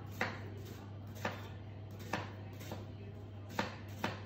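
Knife chopping a red onion on a plastic cutting board: about six separate knife strikes, roughly one a second, with a steady low hum underneath.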